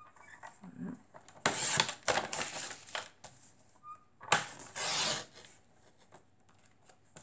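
Paper being cut on a sliding paper trimmer: the blade rasps through the sheet in two main strokes, about a second and a half in and again about four and a half seconds in, with light paper rustles and ticks between them.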